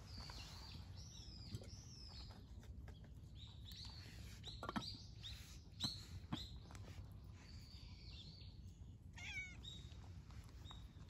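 A cat crunching dry kibble from a bowl, with a few sharp crunches, most of them in the middle. Small birds chirp in the background, with a quick falling trill near the end.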